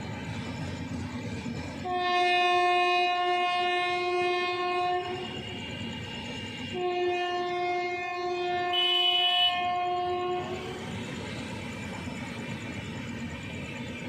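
WAP-4 electric locomotive's horn sounding two long blasts, each about three and a half seconds, over the low rumble of the train running on the track.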